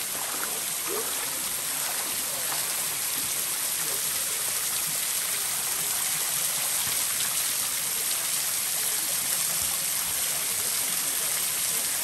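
A small waterfall spilling down a rock face onto rocks and a pool: a steady splashing rush of falling water.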